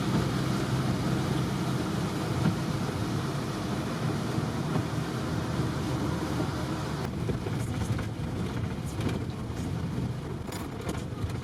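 Bus engine and road noise heard from inside a moving bus, a steady low rumble. From about halfway through, light clicks and rattles come in.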